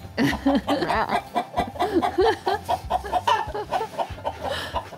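Hens in nest boxes clucking in a quick run of short calls that rise and fall in pitch: a laying hen complaining at being disturbed on the nest.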